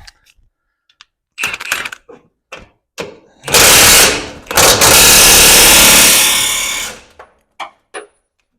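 Impact wrench driving bolts home: a short burst about three and a half seconds in, then a longer run of about two and a half seconds that eases off, with a few metal clanks from handling parts and sockets before it.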